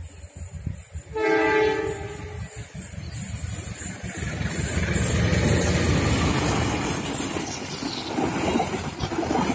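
Diesel-hauled Dhoho passenger train sounding its horn once about a second in, a blast of about a second. The train's rumble then builds as it comes through, and the carriage wheels clack over the rail joints near the end.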